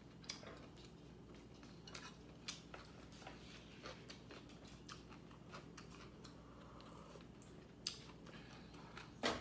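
Scattered light clicks and taps of eating utensils against dishes, with a few louder knocks near the end, over a faint steady hum.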